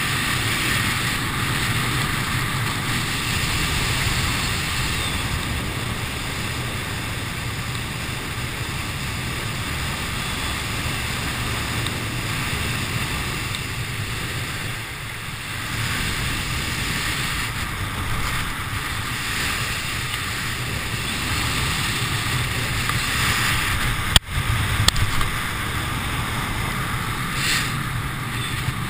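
Steady wind rushing over a helmet camera's microphone during flight under a ram-air parachute canopy, with one sharp click late on.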